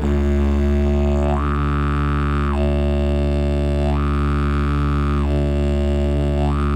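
Didgeridoo playing a steady, balanced drone at the right lip pressure, neither too soft nor too hard. The low note holds steady while the upper overtones brighten and dull again several times.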